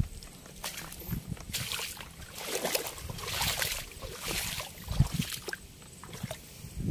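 River water splashing and sloshing as a cast net is hauled in through the shallows by its rope, with irregular swishes and a dull knock about five seconds in.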